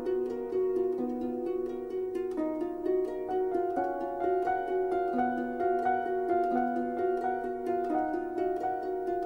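Instrumental background music: a quick, steady run of plucked notes over held tones.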